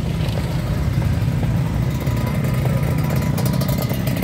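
A steady engine running, with a constant low hum and no clear change in speed.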